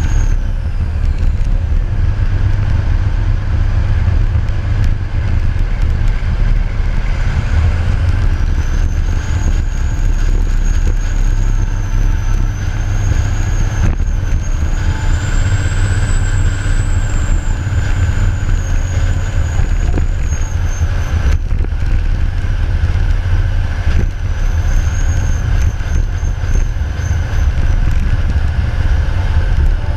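A heavy loader's diesel engine running steadily as the machine drives over a coal pile: a deep, continuous rumble with a thin high whine that rises and falls slowly.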